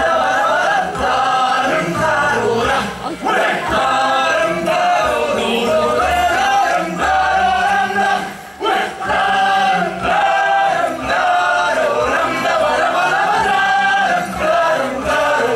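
A group of voices singing a song together as a chorus, with music behind them.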